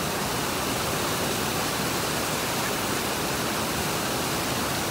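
Rushing water of a waterfall cascading over rock, a steady even hiss.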